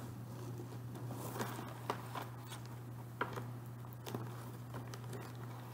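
Faint handling of a craft kit's packaging and a folded paper pattern sheet: soft rustling with scattered small clicks and taps, over a steady low hum.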